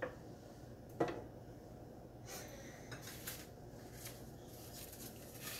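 A single sharp clink of kitchenware about a second in, followed by faint scattered clicks and light handling noises over a low room hum.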